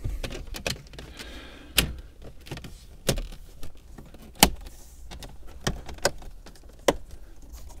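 Opel Astra J plastic centre-console trim panel being pressed into the dashboard by hand: a string of sharp plastic clicks and knocks as it is pushed and seated, the loudest about halfway through, with handling rustle between.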